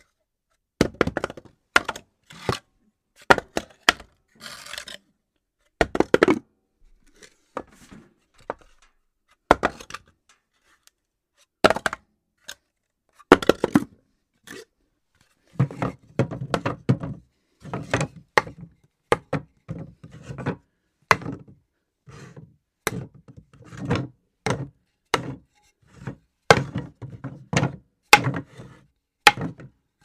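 Objects dropped one after another onto a floor: a long series of separate sharp thuds and clacks, some followed by short clattering runs as things bounce and settle.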